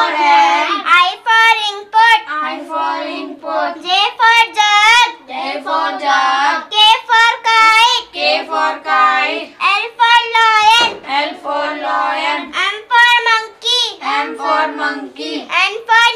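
Two children chanting the English alphabet rhyme in a sing-song voice ('A for apple, B for ball…'), taking turns line by line.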